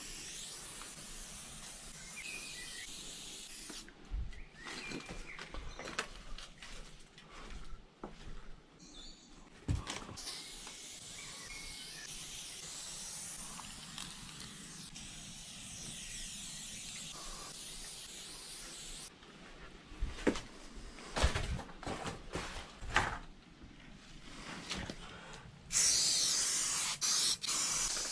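Aerosol spray paint can hissing in long sprays, with spells of sharp clicks and knocks between them; the loudest spray starts near the end.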